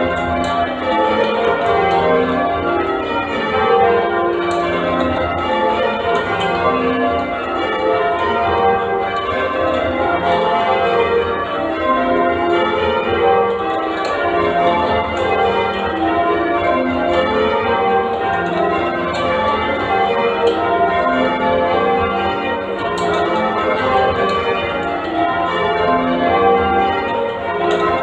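Change ringing on a ring of eight church bells cast by Mears & Stainbank. The bells strike one after another in rapid, even rows, their tones overlapping without a break.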